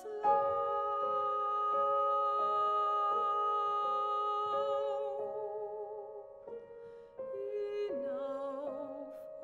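Classical art song: piano chords held and changing slowly, joined near the end by a mezzo-soprano voice singing with vibrato.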